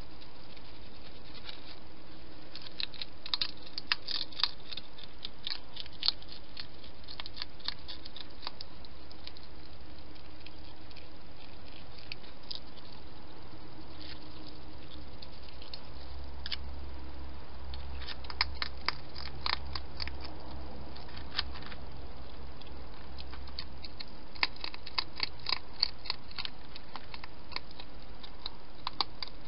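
A hedgehog chewing food, crunching in bursts of rapid sharp clicks with pauses between.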